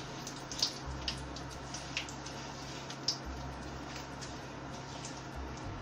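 Fresh curry leaves and whole spices sizzling in hot oil in a wok, a steady hiss with a few sharp crackles and pops as they are stirred. The oil is hot enough to smoke.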